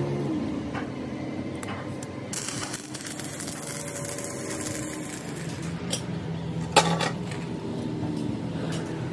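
Stick welding on a steel truck front axle beam: the arc's intermittent crackle over a steady low electrical hum. Scattered metallic clinks run through it, with a sharp metal knock about seven seconds in.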